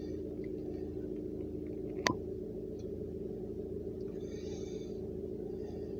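Steady low hum inside a car cabin, with a single sharp click about two seconds in.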